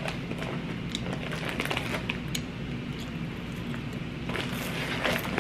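Kettle corn crunching as it is chewed, a scatter of small crackles over a steady low hum.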